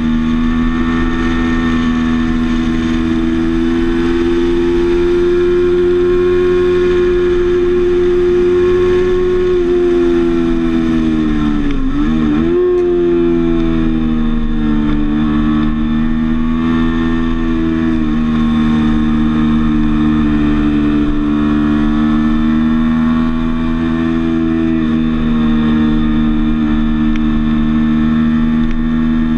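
Sport motorcycle engine running at steady, high revs, heard from a camera mounted on the bike with a low rush of wind and road noise underneath. About twelve seconds in, the engine note drops sharply and climbs straight back. Smaller shifts in pitch follow later.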